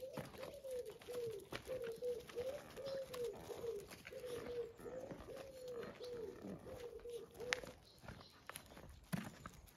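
A pigeon cooing over and over in a steady rhythm, stopping about three-quarters of the way through, with a few light clicks and scuffs on gravel.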